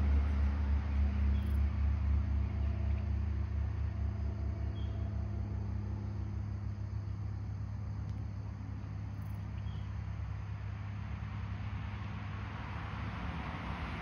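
Low, steady rumble of a running motor vehicle engine, fading gradually over the first several seconds and then holding, with three faint short high chirps.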